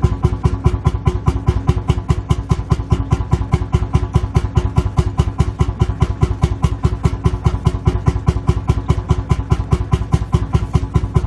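Lanz Bulldog tractor's single-cylinder two-stroke engine idling, an even, rapid chugging beat that does not change.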